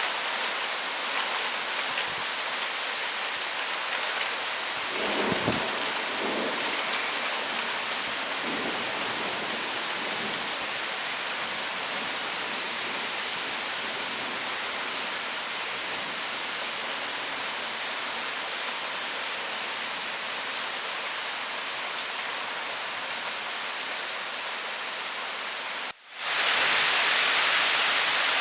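Heavy rain falling steadily in a thunderstorm, an even hiss, with a brief low rumble about five seconds in. Near the end the sound cuts and comes back as a louder, steady hiss.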